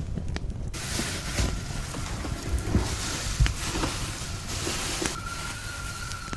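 Stovetop kettle coming to the boil: a steady hiss with a few light knocks, then a steady whistle begins about five seconds in.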